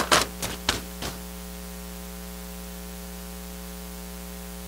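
Loose paper sheets rustling and being turned at a lectern, about five crisp strokes in the first second, then a steady electrical mains hum with hiss.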